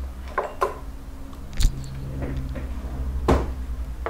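A few short, sharp clicks and knocks of tools and small objects being handled on a workbench, the loudest about a second and a half in and another near the end, over a steady low hum.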